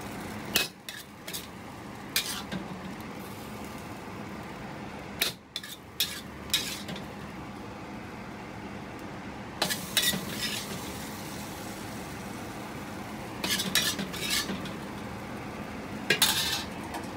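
Metal wok spatula scraping and clinking against a wok and a ceramic bowl as saucy eggplant is scooped out, in short bursts of scrapes and clicks every few seconds. A steady low hum runs underneath.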